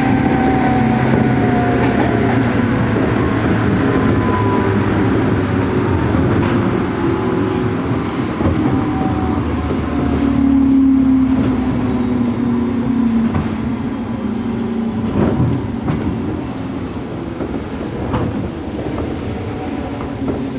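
Running sound inside a JR Kyushu 103-series motor car: the MT55 traction motors' whine and gear hum slide slowly down in pitch and grow gradually quieter as the train slows, over a steady rumble of wheels on rail. A few sharp rail-joint clicks come in the second half.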